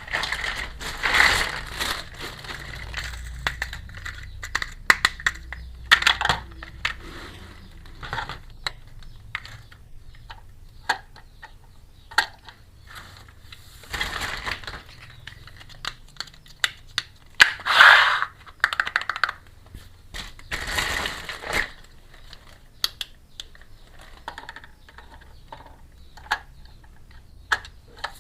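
Small plastic toy kitchen pieces being handled, with irregular clicks and taps as parts are set down and fitted together, and several longer rustles of packaging.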